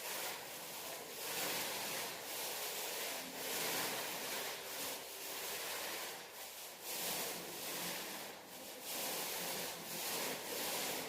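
Wet paint being spread on a wall. Repeated rubbing strokes swell and fade about once a second.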